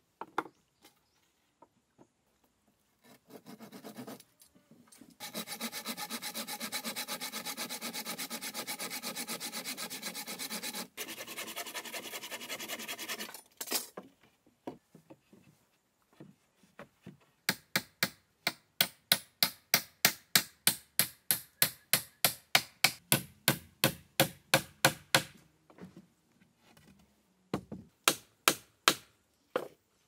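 Wood being cut with a hand saw: first a long, fast, steady run of strokes, then after a pause a slower run of separate strokes, about four a second, and a few more near the end.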